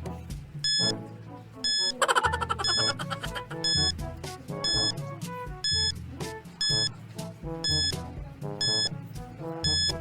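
Background music with a bass line and a high electronic beep that repeats about once a second, with a brief flurry of bright notes about two seconds in.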